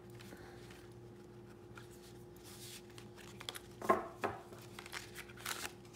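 Oracle cards being slid together after a riffle shuffle with faint rubbing, then the deck squared up with two sharp taps on the table about four seconds in. A faint steady hum lies underneath.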